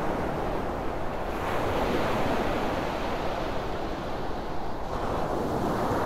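Sea surf washing onto a sandy beach, with wind. The wash of the waves swells about a second and a half in and again near the end.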